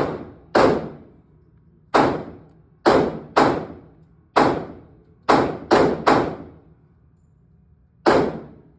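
Radical Firearms 5.56 AR-15 rifle fired semi-automatically: about ten sharp shots at an uneven pace, each with a short echoing tail, with a pause of about two seconds before the last one.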